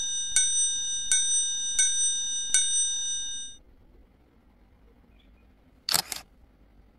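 A bright bell-like chime rings five times at an even pace, about three-quarters of a second apart, and dies away about three and a half seconds in. Near the end, a Poco smartphone's camera shutter clicks once as a photo is taken.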